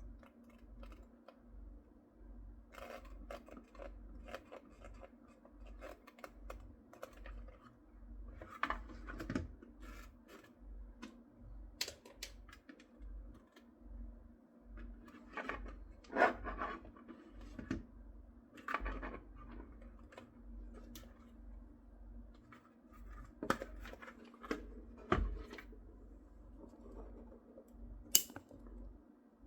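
Irregular clicks, taps and scraping of small hard parts handled at close range, as in hands-on work cutting and fitting pieces, over a faint steady hum.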